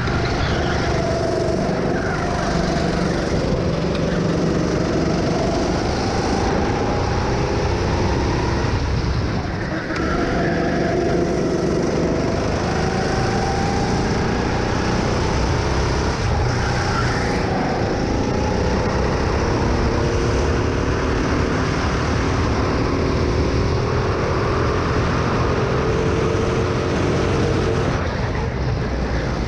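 Go-kart engine heard on board while driving, its pitch rising and falling slowly as the kart speeds up on the straights and eases off for the corners, over a steady rushing noise.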